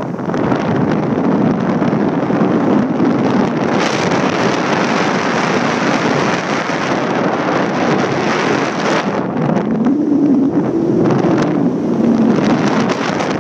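Wind rushing over the microphone high in the air under a parasail: a loud, steady rush that swells and dips slightly.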